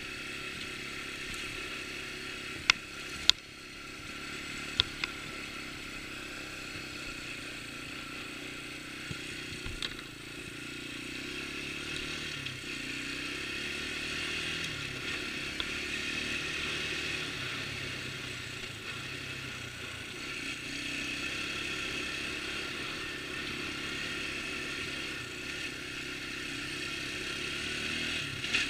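A 1988 Yamaha Moto-4 225 ATV's single-cylinder four-stroke engine running under way. Its pitch rises and falls as the throttle changes, and it grows louder about halfway through. A few sharp knocks come in the first few seconds.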